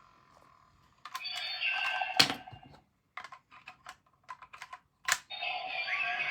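Blazar Bracelet transformation toy sounding short electronic effects through its small speaker, broken by sharp clicks of its parts being worked: a loud click about two seconds in, a quick run of small clicks, another sharp click after about five seconds, then a longer electronic effect starts.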